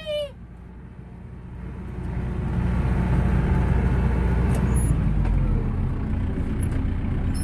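Kubota RTV500 utility vehicle's engine running, picking up speed about two seconds in and then driving along steadily with a low rumble.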